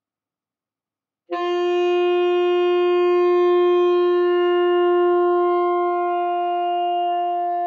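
Alto saxophone sounding one sustained long tone that starts suddenly about a second in and is held steadily. The player is adjusting embouchure and airstream during the note to work toward a purer, richer classical tone.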